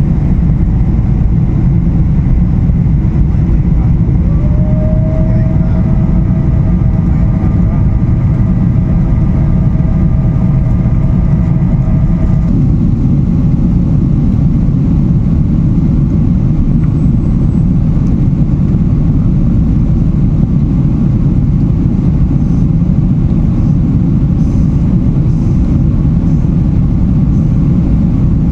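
Steady low rumble of engines and airflow heard inside the cabin of a Boeing 777-300ER climbing after takeoff, from its GE90-115B engines. A whine rises about four seconds in, holds steady, and cuts off suddenly about twelve seconds in.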